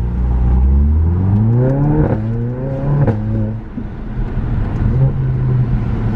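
Mercedes A45 AMG's turbocharged four-cylinder engine with an aftermarket exhaust accelerating hard: the revs climb, drop at an upshift about two seconds in, climb again and drop at a second upshift about a second later, then settle to a steadier run.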